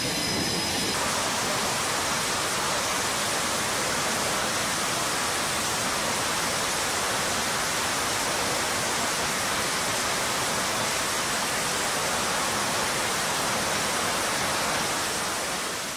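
Twin jet engines of an F/A-18F Super Hornet running up on a carrier's catapult before launch: a steady, even rushing hiss, fading out near the end.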